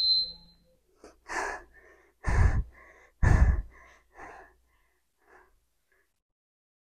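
A woman breathing hard close to a clip-on microphone, catching her breath after a set of sumo squats: about four heavy exhales a second apart, the breaths fading out about five seconds in.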